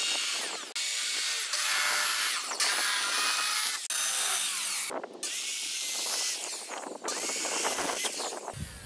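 Corded circular saw running and cutting through rigid foam insulation board: a high motor whine over a hissing cut. It comes in several runs that stop and start abruptly, about a second in, near four and five seconds, and again around seven seconds.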